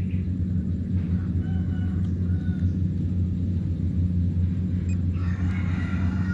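Diesel engine of a DC 93 rice combine harvester running steadily with a deep, even hum.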